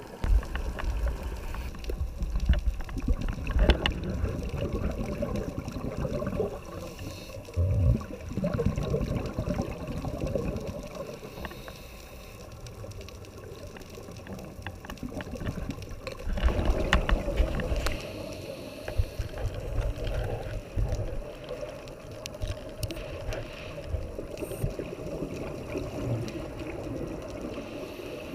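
Muffled underwater sound picked up by a dive camera in its housing: a steady low rushing of water, broken every few seconds by louder bubbling surges from a scuba diver's exhaled regulator bubbles.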